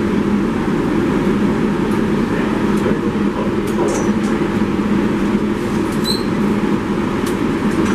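R188 subway train running, heard from inside the car: a steady, loud rumble with a few brief high squeals from the wheels and rails about four and six seconds in.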